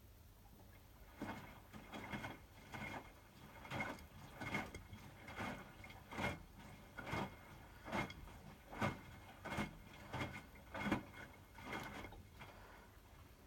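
Hotpoint WMFUG 942 front-loading washing machine's drum turning through a wash stroke in the heating stage of a 60° wash, the wet load dropping and sloshing about every three quarters of a second. The strokes begin about a second in and stop near the end as the drum pauses.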